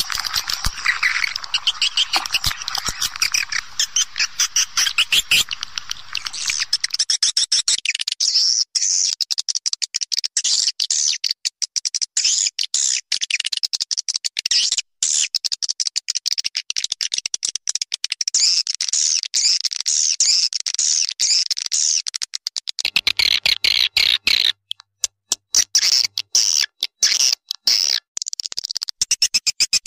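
Swiftlets' rapid, high-pitched twittering calls, dense and chattering, the kind of recording played as a lure call to draw swiftlets into a nesting house.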